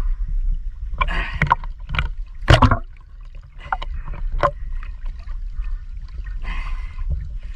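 Seawater sloshing and splashing around a camera held at the waterline, with a steady low rumble of water on the microphone and a few sharp splashes, the loudest about two and a half seconds in.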